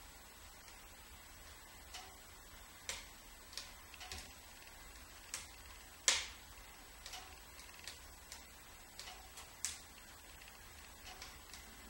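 Wood fire in a fireplace crackling quietly, with irregular sharp pops from the burning logs; the loudest pop comes about halfway through.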